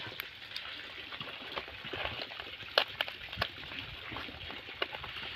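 Fresh leaves rustling and crackling as hands fold them into a parcel and pin it with thin twig slivers. A few sharp clicks stand out, the loudest about three seconds in.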